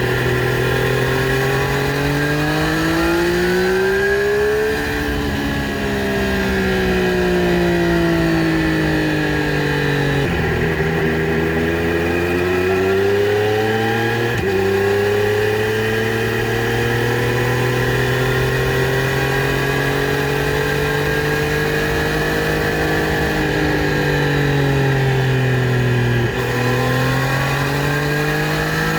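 2020 Triumph Street Triple RS's 765 cc inline three-cylinder engine through its stock exhaust, engine speed rising and falling smoothly over several seconds at a time. The pitch jumps abruptly about ten seconds in and again near the end, as gears change.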